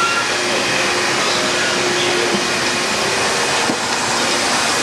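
Sawmill machinery running: a steady, loud wash of mechanical noise with a faint hum and no distinct cuts or strikes.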